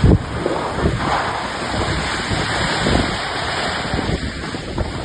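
Wind gusting and buffeting the microphone: a loud, uneven rush of noise with low rumbling bursts.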